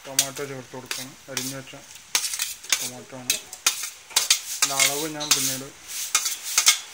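Sliced tomatoes scraped off a steel plate into a pot of frying onions: a metal spoon scrapes and clicks repeatedly against the plate, some scrapes squealing, over the sizzle of the onions frying.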